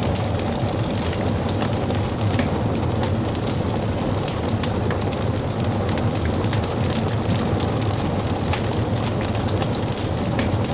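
Wood fire burning with a steady low rumble of flames and many small crackles and pops from the burning wood.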